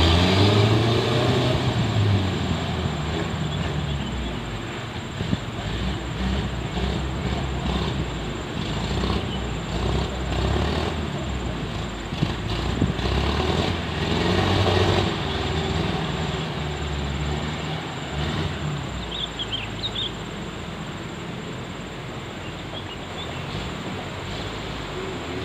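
Off-road jeep engine running under load, its pitch rising and falling as it revs, loudest in the first couple of seconds.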